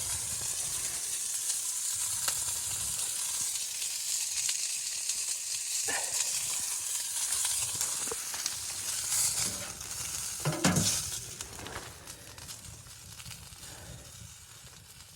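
Food frying, with a steady sizzle and a few knocks, the loudest about eleven seconds in. The sizzle dies down over the last few seconds.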